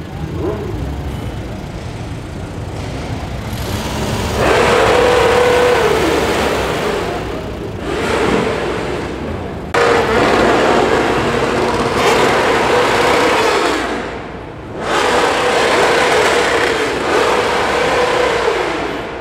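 Vehicle engines revved hard and held at high revs in three long blasts of a few seconds each, dropping back briefly in between.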